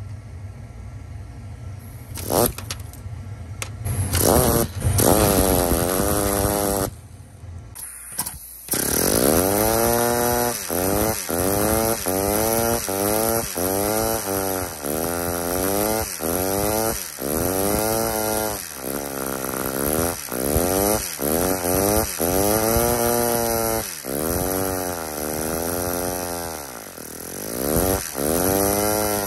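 Lego Technic pneumatic engine running on compressed air: a few short starts and clicks, then from about nine seconds in a continuous run whose whine rises and falls about once a second.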